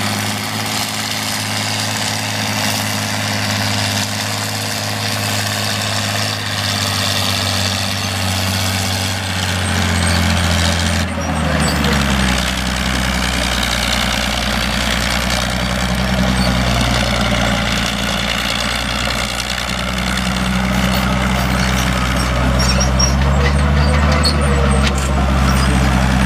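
Fiat 120C crawler tractor's inline six-cylinder diesel engine running steadily under load while pulling a plough. Its note drops about a third of the way through and climbs again near the end.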